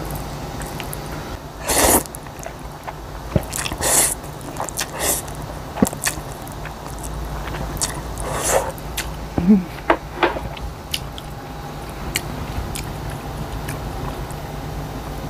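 Close-miked eating sounds: glass noodles in rosé sauce slurped and chewed in several short, wet bursts, with a few sharp clicks of chopsticks, over a steady low hum.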